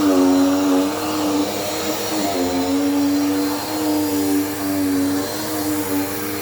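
Dirt Devil Power Max vacuum cleaner running with a strong motor whine whose pitch dips slightly twice and recovers. It is a new machine's noise that the owner calls not uncommon, quieting down as it breaks in.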